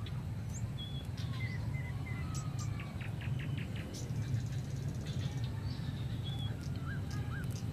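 Small birds chirping in short high notes, with a quick run of ticks about three seconds in, over a steady low background rumble.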